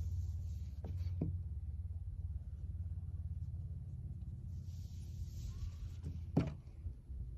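A knife cutting into a glitter-topped block of soap: a few sharp clicks and a short scraping hiss. A steady low rumble runs underneath.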